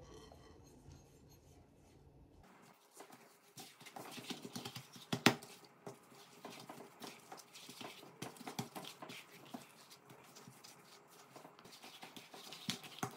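Hands kneading soft dough on a silicone pastry mat: irregular soft pats, slaps and squishes, with one sharper knock about five seconds in. The first couple of seconds are nearly quiet.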